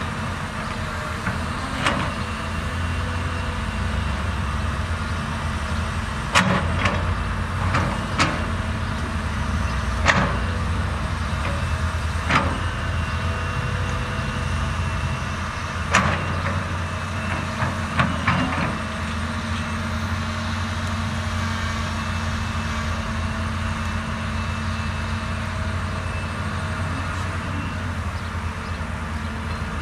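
CAT 320D excavator's diesel engine running steadily under work, with about nine sharp metallic knocks and clanks spread through the first two-thirds.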